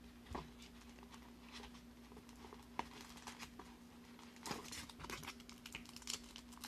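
Foil trading-card pack and cardboard display box being handled: faint crinkling, rustling and light taps as a pack is pulled from the box and pinched between the fingers, busier in the second half. A faint steady hum runs underneath.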